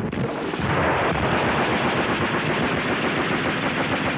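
Rapid automatic gunfire, a continuous fast string of shots that builds up about half a second in.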